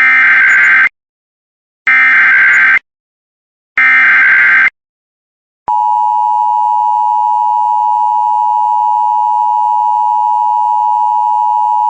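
Emergency Alert System header: three short bursts of warbling data tones, about a second apart, then the EAS attention signal, a loud steady two-tone alert, starting about six seconds in. Together they mark the start of a new emergency alert message.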